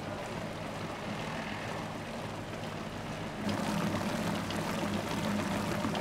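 Commercial planetary stand mixer running, its wire whisk beating batter in a steel bowl: a steady motor hum and whir that grows louder about three and a half seconds in.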